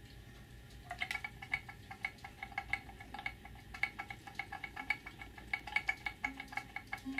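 Acoustic improvised music: a small ringing percussion object tapped or shaken in quick, uneven strokes starting about a second in, each ring on the same few pitches, with a low held tone joining near the end.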